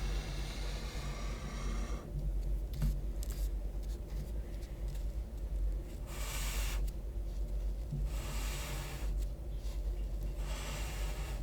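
Felt tip of a highlighter dragged across paper in separate strokes: a long stroke, a short one about six seconds in, then another long one, with pauses between.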